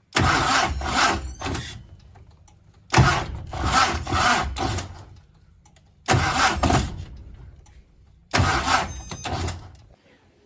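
Car engine revved in four short bursts, each with two or three swells before it dies away.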